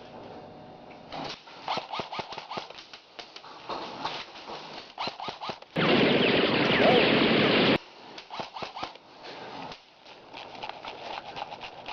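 Scattered sharp clicks and taps of airsoft play. About six seconds in comes a loud, steady rush of noise lasting about two seconds that starts and cuts off suddenly.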